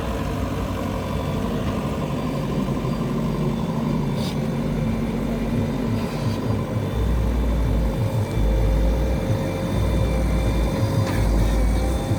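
JCB 3DX backhoe loader's diesel engine running steadily while it works, with heavier low rumbling surges under load from about seven seconds in.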